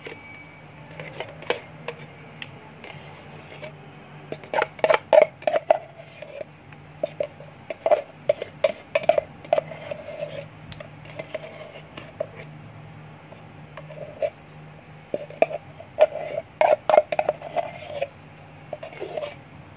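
A metal spoon scraping and knocking against a plastic cream jar and a metal bowl as thick body cream is dug out, in clusters of quick clicks and scrapes about five, nine and sixteen seconds in.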